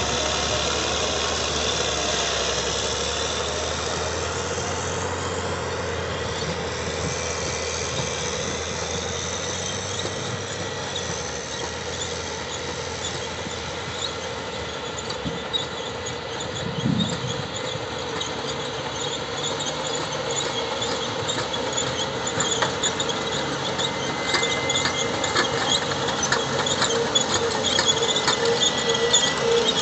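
Caterpillar 623-series elevating (paddle) scrapers loading dirt: the diesel runs steadily under load with a continuous high squeal and whine. A rapid clatter of ticks builds up in the last several seconds.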